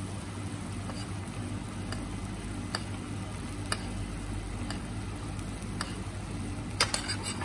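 Thickening cream sauce simmering in a pan, bubbles popping with a soft tick about once a second over a steady low hum, then a quick run of sharper clicks near the end.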